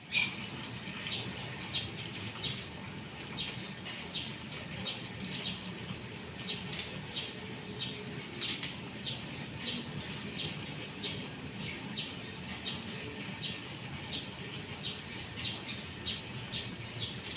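Short bird chirps repeating about two a second over a faint steady hiss.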